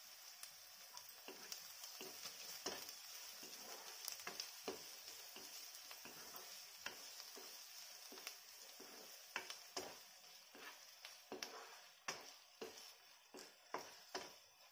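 Paneer cubes, chopped green peppers and garlic sizzling faintly in oil in a nonstick kadhai while a wooden spatula stirs them, with frequent light knocks and scrapes of the spatula against the pan that come more often in the second half.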